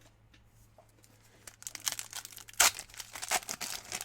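A foil trading-card booster pack being torn open and crinkled. About a second and a half in the crackling starts, with the loudest rip about two and a half seconds in.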